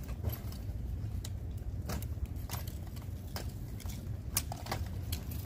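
Scattered light clicks and taps from small electrical fittings being handled and threaded together by hand, about nine, irregularly spaced, over a steady low rumble.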